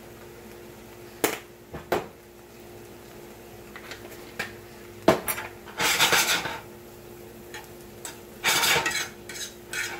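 A metal fork scraping and clinking against a nonstick frying pan as pieces of imitation crab are turned over, in several short bursts in the second half. A few sharp clicks come earlier, as the spice containers are handled.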